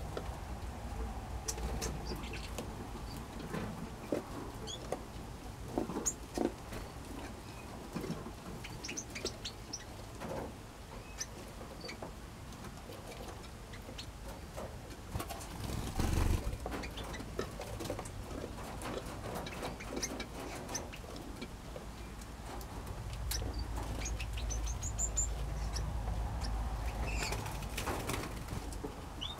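Mixed aviary of small finches and parrots giving scattered short, high chirps and calls, with light clicks and knocks. A low rumble comes in briefly about halfway through and again for several seconds near the end.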